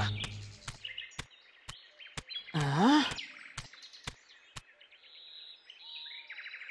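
Cartoon footstep sound effects: sharp clicks about two a second as a chicken character walks, with a short wordless voice sound that dips and then rises about halfway through. Near the end the steps stop and faint bird chirping takes over.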